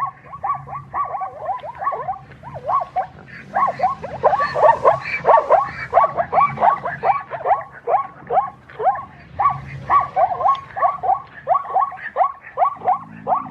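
An animal calling in a rapid series of short, yelping calls, each falling in pitch, about three a second and overlapping at times.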